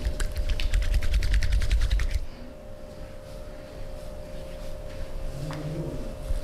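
Rapid hand-percussion massage: fast, even slaps or taps on the body, about ten a second, stopping about two seconds in. A steady faint hum runs underneath.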